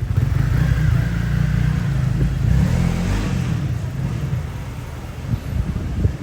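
Loud, low vehicle rumble that wavers and eases slightly in the second half.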